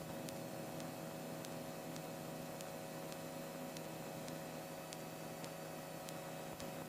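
Steady electrical hum and hiss on the cockpit intercom audio, with faint ticks about once or twice a second.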